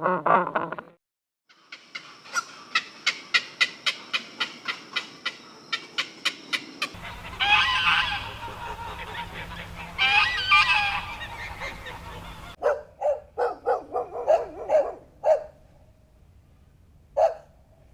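Domestic waterfowl calling. First comes a quick run of short calls at about three a second, then two long loud calls, then a cluster of short calls and a single call near the end. The calls break off abruptly between stretches.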